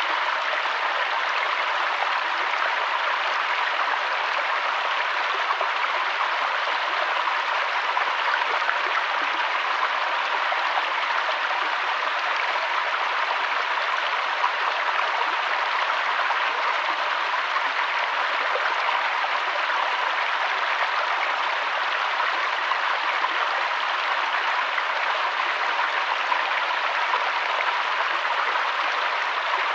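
Running water rushing in an even, unbroken stream, like a brook or small cascade.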